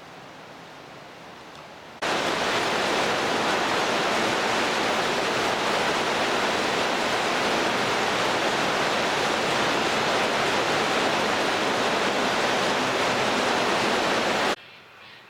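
A loud, steady rushing hiss that cuts in suddenly about two seconds in and stops abruptly near the end.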